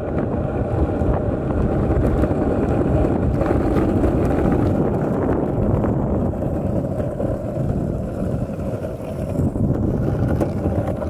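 Longboard wheels rolling fast over coarse asphalt, a steady rolling noise, with wind buffeting the microphone.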